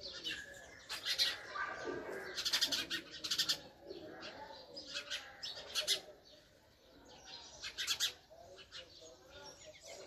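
House sparrow, a female, giving short chirps in quick clusters every second or two, with a short lull about two-thirds of the way through.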